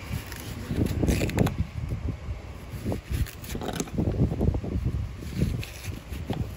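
A kitchen knife cutting the rind off a whole watermelon, with several short crisp cuts, over irregular low rumbling.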